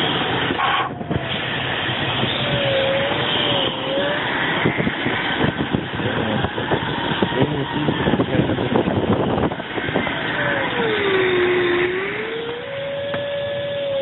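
Steady rush of airflow over a glider's canopy in flight, with a thin electronic variometer tone that wavers briefly a few seconds in, then slides down in pitch and back up again near the end.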